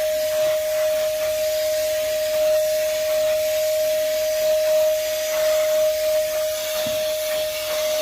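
Moosoo 18 V cordless vacuum running steadily, a constant whine over the hiss of rushing air.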